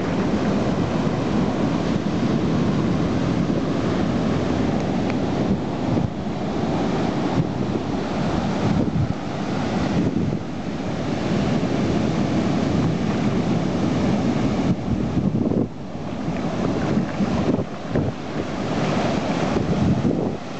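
Ocean surf breaking and washing up the sand in a continuous rush, with wind buffeting the microphone.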